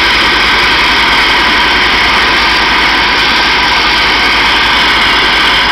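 Mist-blasting (nevelstralen) nozzle spraying a fine jet of abrasive water mist onto brickwork: a loud, steady hiss of compressed air and spray, with a low throb underneath.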